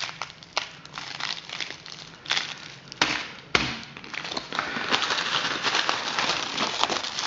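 Handling noise from firework packaging: scattered clicks and a couple of sharper knocks as packets are moved, then, from a little past the middle, a clear plastic bag crinkling continuously as hands work it.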